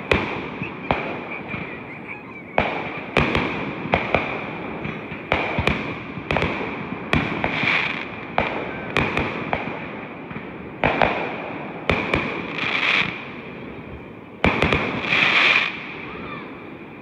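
Aerial fireworks shells bursting in quick succession, a sharp bang every half second to a second, a few followed by about a second of crackling hiss. The bangs thin out near the end.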